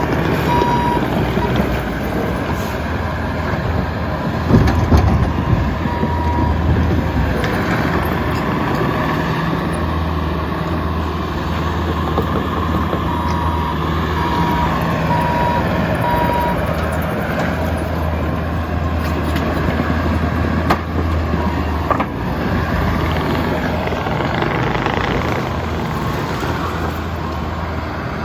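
Bobcat T740 compact track loader's engine running steadily as it works, with its reverse alarm beeping in short runs while it backs up. A few sharp knocks come about four to five seconds in.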